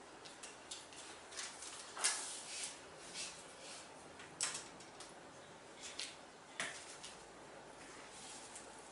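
Hands handling small craft tools and a cord doll on a tabletop, making scattered light clicks and taps over soft rustling. Three of the clicks are sharper: about two seconds in, halfway through, and two-thirds of the way through.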